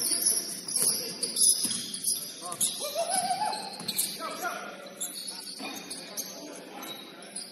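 Basketball shoes squeaking over and over on a gym court during play.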